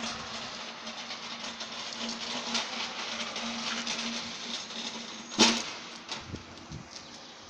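Factory hall background noise with a faint steady hum, then one sharp knock about five and a half seconds in, followed by a few softer clicks.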